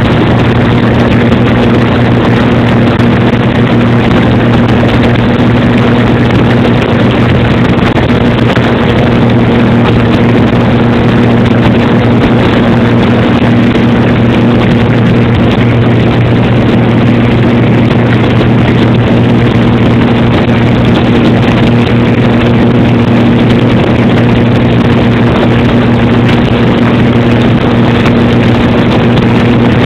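Airplane engine noise heard inside the cabin: a loud, unbroken drone with a steady low hum and a rushing hiss over it.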